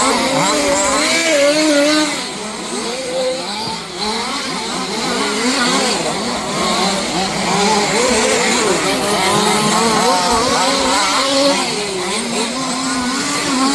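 Several 1/5-scale two-stroke petrol RC car engines racing together, each revving up and down, so many high, buzzing pitches rise and fall over one another.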